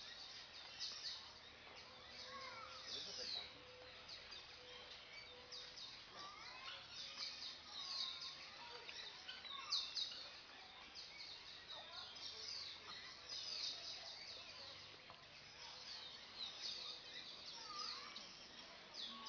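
Small birds chirping continuously: many short, high chirps in quick clusters over faint outdoor background noise.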